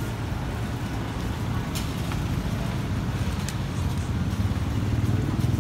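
Street traffic: a motor vehicle's engine running with a low rumble that grows louder near the end, with a few faint clicks.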